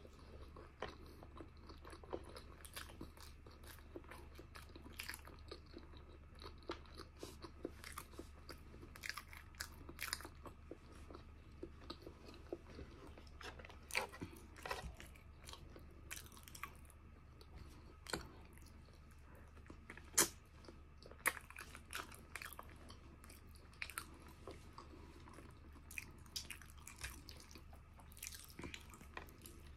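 Close-up chewing of a mouthful of pork pata estofado (braised pork hock), with many small, irregular wet mouth clicks.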